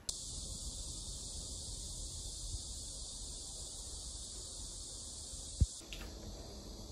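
Steady high-pitched drone of an insect chorus, even and unchanging, which drops abruptly to a fainter drone near the end. A single short knock comes just before the drop.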